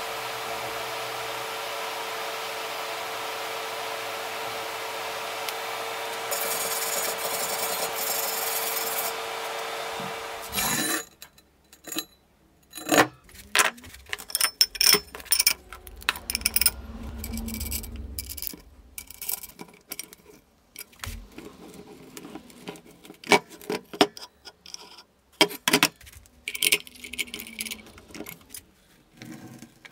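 TIG welding arc on steel tubing, a steady hiss with a hum, which stops about a third of the way in. Then scattered clinks, clanks and scraping of steel parts as swivel casters are set on a steel disc and bolted on, with a wrench turning the nuts.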